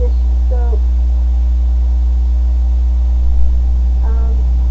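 Steady, loud low hum that does not change, with fainter steady tones above it.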